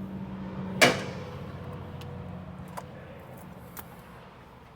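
A single sharp metallic clank about a second in, ringing briefly as it fades, over a steady low hum, with a few faint ticks of tools being handled.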